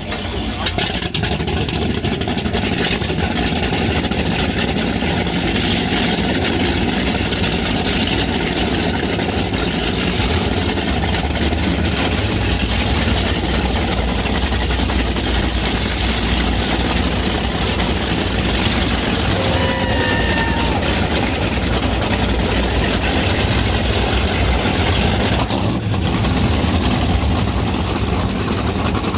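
Offshore racing boats' big V8 inboard engines idling, a steady, dense rumble that neither revs up nor dies down.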